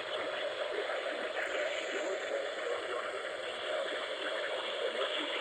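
Steady static and hiss from a weather radio receiver picking up a weak, distant NOAA Weather Radio station, the signal barely coming through the noise.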